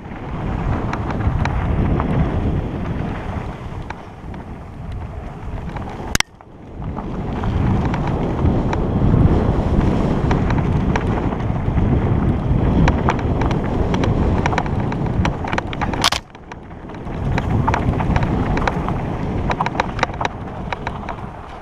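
Wind buffeting a helmet-mounted camera's microphone while riding an REI Co-op 2.1 hardtail mountain bike along a dirt singletrack, with tyre rumble and rapid rattling clicks from the bike over bumps. The sound drops out suddenly for a moment twice.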